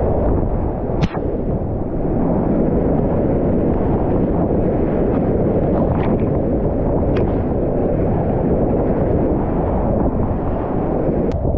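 Whitewater river rapids rushing and churning loudly around a kayak, heard close up from the paddler's camera, with water washing over the camera partway through. A few brief sharp clicks come about a second in, twice in the middle, and near the end.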